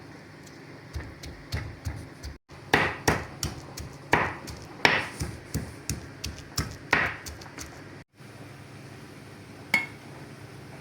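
A series of irregular hard knocks, about a dozen, some a second apart and some closer, with one last knock near the end; the sound cuts out briefly twice.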